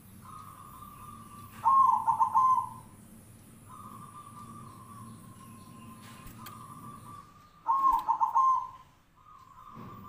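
Zebra dove (perkutut) cooing: two loud runs of quick, rolling coos, about two seconds in and again near the end, with a fainter steady note at the same pitch between them.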